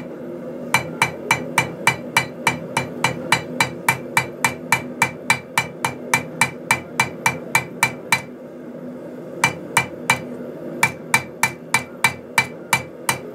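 Ball peen hammer striking steel flat stock in quick, even blows, about four a second, each with a short metallic ring, texturing the metal's surface. The blows stop for about a second and a half near eight seconds in, then resume.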